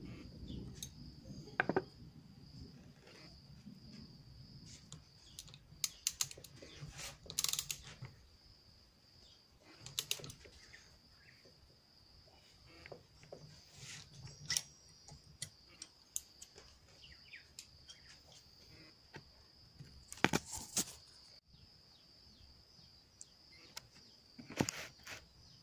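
Scattered metallic clicks and clinks of a spanner and torque wrench working the nut on an alternator's freewheel clutch pulley as it is tightened. There is a sharp double click about twenty seconds in, over a steady high-pitched insect chirr.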